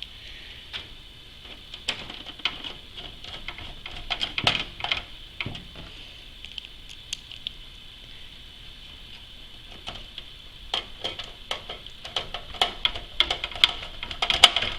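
Screws being driven by hand into a PC case's expansion-slot brackets to fasten a graphics card: scattered small metallic clicks, taps and scrapes, coming more thickly toward the end, over a steady faint high hiss.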